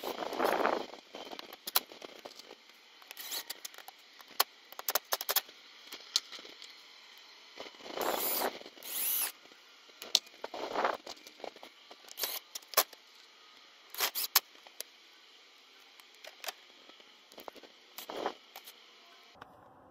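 Craftsman cordless impact driver driving screws into a gate latch in short bursts: one right at the start, a longer one about eight seconds in, and brief ones later, with clicks and taps from handling the plastic latch between them.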